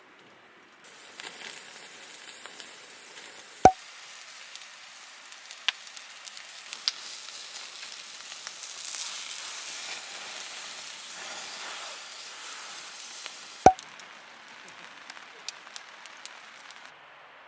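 Food sizzling in a pan over a campfire: a steady sizzle that starts about a second in, swells around the middle and cuts off suddenly near the end. Small crackles run through it, with two sharp loud clicks about ten seconds apart.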